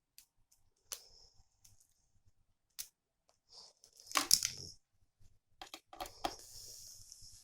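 Packaging being handled: scattered clicks and short rustles, with the loudest crinkling, tearing burst about four seconds in and a steady high hiss near the end.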